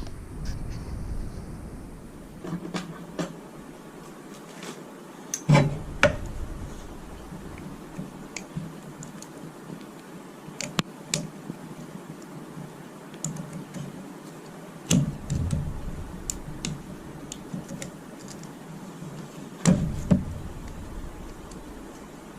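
Scattered small plastic-and-metal clicks and ticks, with louder knocks about 6, 15 and 20 seconds in, from hands working on a microwave oven's door latch assembly while its faulty door limit switch, which snaps in without screws, is taken out and replaced.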